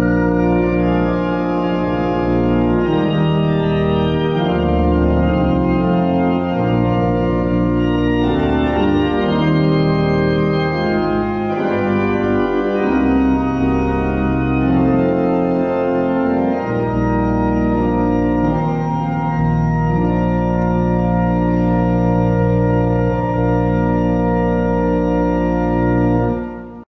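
Church pipe organ playing the closing bars of a hymn arrangement in full, sustained chords over a deep pedal bass. It ends on a long held final chord that cuts off suddenly near the end.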